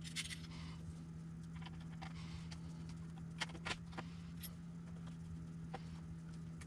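Faint, scattered clicks and taps of small screws and bushings being handled and fitted into a plastic RC truck chassis, over a steady low hum.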